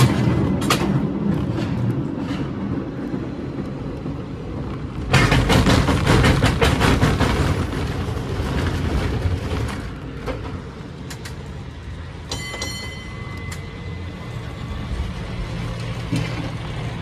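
San Francisco tram passing with a loud clattering rumble from about five to ten seconds in. Its bell rings in a quick run of strokes about twelve seconds in, over steady low street rumble.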